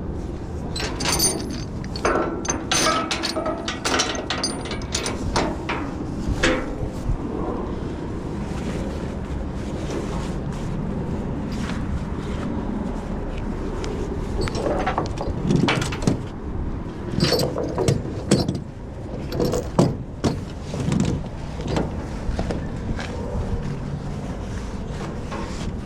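A vehicle engine runs steadily underneath two spells of quick metallic clicks and clanks, one in the first few seconds and another past the middle, from tie-down straps being worked on a car trailer.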